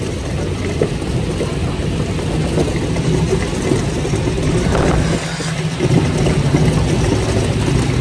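Moving walkway running under riders: a steady low mechanical hum and rumble.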